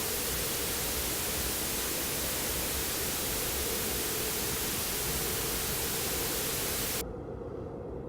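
Steady hiss of radio static with a faint steady hum under it, cutting off abruptly about seven seconds in to a much quieter, duller hiss.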